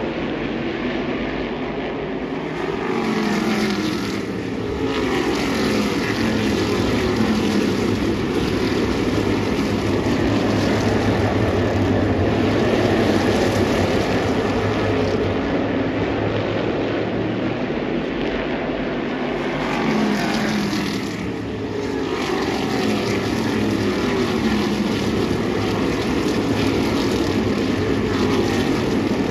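A field of V8-powered modified race cars lapping a short track. Many engines overlap continuously, their pitch gliding up and down as cars pass, with the sound easing briefly twice.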